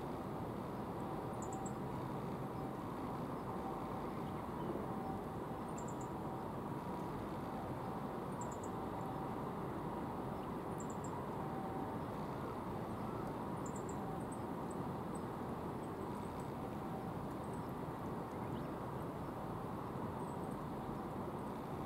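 Steady low outdoor rush of ambient noise, with a small bird giving short, thin, high-pitched calls every two to three seconds.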